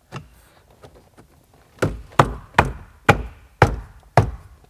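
Plastic dashboard trim of a BMW E46 3 Series being pressed and tapped back into place by hand, its clips snapping in. A soft knock near the start, then six sharp knocks about half a second apart.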